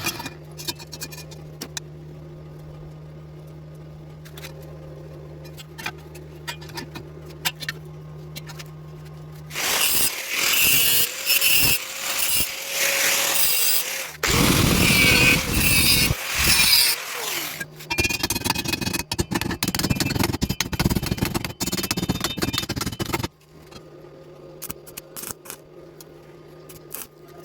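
Stick-welding arc on thin square tube crackling loudly for about fourteen seconds, starting about ten seconds in, with a couple of brief breaks. A steady low hum runs before and after it.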